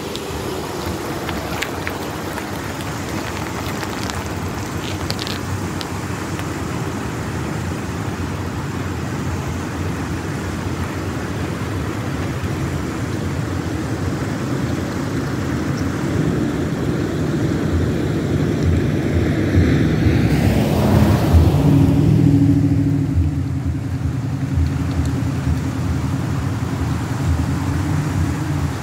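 Motor vehicle noise: a steady low rumble that swells as a vehicle passes about two-thirds of the way through, then settles into a lower engine hum.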